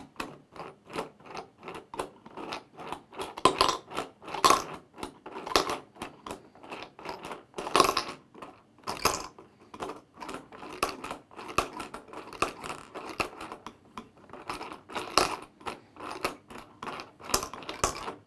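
US coins clinking and clattering in a 3D-printed PLA coin sorter as its toothed dial is turned by hand: the coins are dragged across the plastic and drop into the sorting tubes, making a continuous run of irregular clicks with louder clinks every few seconds.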